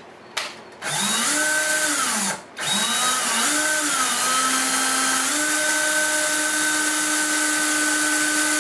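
Cordless DeWalt drill running with a popsicle stick in the chuck, winding old fishing line off a spincast reel. After a brief blip, the motor whine rises and falls in speed, stops for a moment about two and a half seconds in, runs up again unevenly, then holds a steady speed from about five seconds in.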